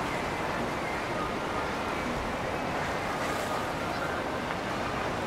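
Steady noise of motorboat traffic on a river: a boat engine running and water washing, with no single event standing out.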